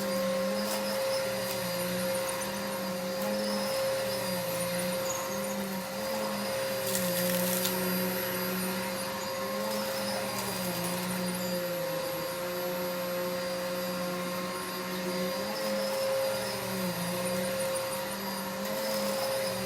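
An inexpensive vacuum cleaner runs continuously. Its motor pitch dips and recovers every second or two as it is pushed back and forth over the floor. There is a short crackle of high clicks about seven seconds in.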